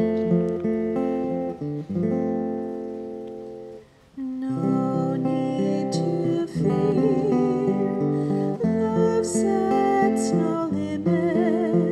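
Acoustic guitar strumming held chords, with a brief pause about four seconds in. After the pause a singing voice comes in over the guitar, as in a hymn.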